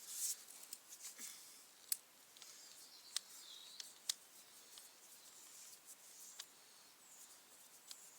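Sparse, irregular sharp clicks and light taps of hand tools and parts being handled while a brush cutter's handle clamp bolts are undone, with a short hiss at the start.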